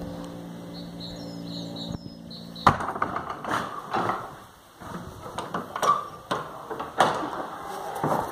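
An old wooden door being unlatched and opened: a sharp click about two and a half seconds in, then irregular knocks and clunks of wood. Before that, a steady low hum with a few bird chirps.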